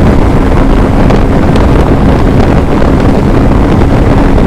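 Heavy wind buffeting the microphone of a motorcycle riding at highway speed, a steady roar. Under it runs the steady drone of the Hero Xpulse 200's single-cylinder engine.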